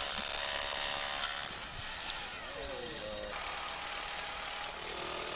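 Electric impact hammer used as a rock breaker, its chisel bit hammering into a block of hard frozen icy regolith. The sound changes about three seconds in, when a second block is broken.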